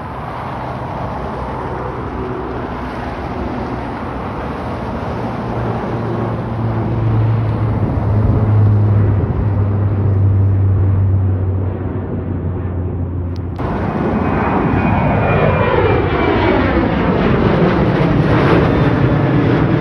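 De Havilland Canada Dash 8-400 (Q400) turboprop flying low overhead, its propellers giving a steady low hum. About 13 seconds in, a sudden switch to a Boeing 737 jet passing overhead: the loud rushing of its engines, with tones that sweep downward as it goes by.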